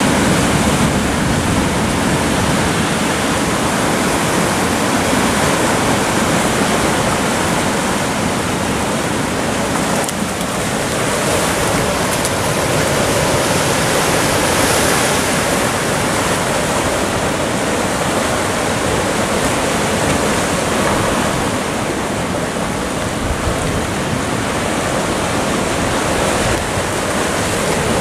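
Sea surf breaking and washing among shoreline rocks: a loud, steady rush of water that swells and eases a little.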